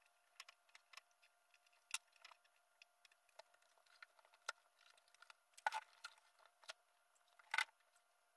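Faint, scattered small clicks and brief rustles of hands stretching and pressing a cloth headliner around the rear window opening of a 1954 VW Beetle's steel body. Two louder rustling knocks come in the second half.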